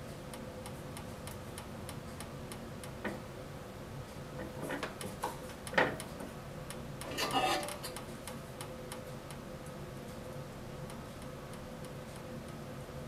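Handling noises on a 9-inch Task Force band saw as its upper wheel and blade are worked by hand: a few small knocks, a sharp click about six seconds in, then a short scraping rustle. Underneath are a steady even ticking and a faint steady hum.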